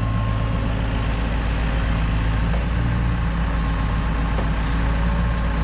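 Tractor engine running steadily as it works an Abbey muck spreader, a low, even drone.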